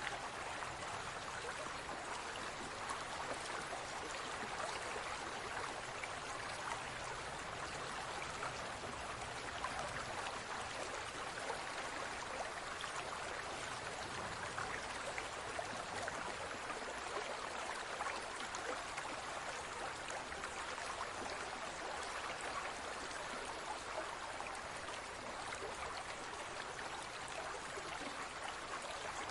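Aquarium water trickling and bubbling steadily, with a constant patter of small splashes.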